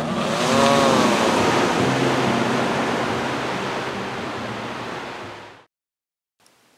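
Ocean surf hissing steadily, with a drawn-out rising-and-falling 'Oooh' from voices about half a second in and a few faint music notes underneath. The surf fades away and drops to silence near the end.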